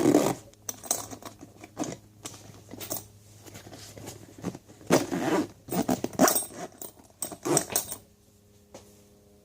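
Handling noise from a tool bag: irregular knocks, rustles and small clinks as the bag and its tools are moved about, louder around five to seven seconds in. It stops about a second before the end, leaving a faint steady hum.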